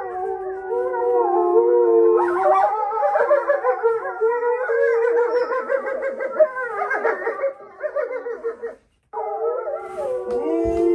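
Several dogs howling together in long, wavering, overlapping howls. The howls break off briefly about nine seconds in, then start again.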